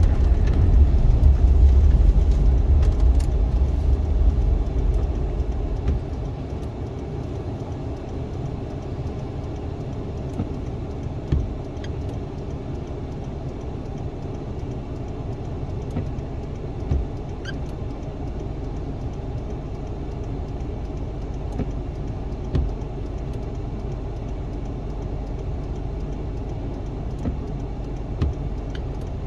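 Inside a 2001 Suzuki Swift with a 1.3-litre four-cylinder, the car rumbles over snow-covered road. The rumble fades over the first six seconds as it slows to a stop, and the engine then idles steadily. Short soft thumps come about every five and a half seconds as the windscreen wipers sweep on intermittent.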